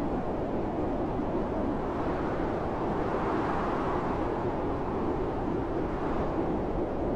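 Loud blizzard wind, a steady deep rushing that swells a little about halfway through.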